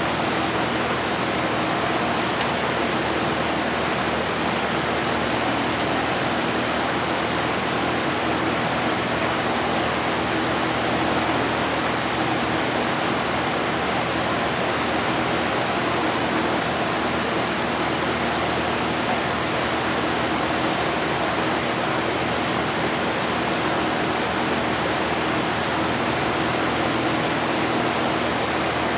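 Spray-painting equipment running: a steady rush of air with a low motor hum underneath, unbroken throughout.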